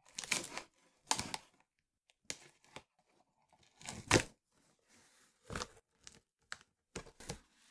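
Packaging being torn and crinkled in a series of short, separate bursts as a box is unpacked, the loudest about four seconds in.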